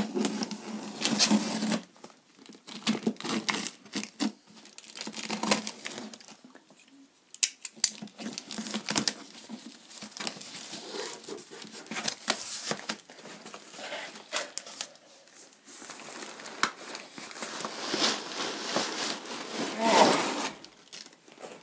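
Packing tape on a cardboard box being slit with a box cutter and torn, then the cardboard flaps pulled open and foam packing sheets crinkling as they are pulled back: an uneven series of scrapes, rips and rustles with short pauses.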